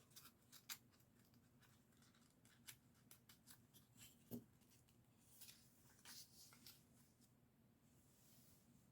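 Near silence with a faint hum and scattered faint clicks of small plastic Lego pieces being handled and pressed together.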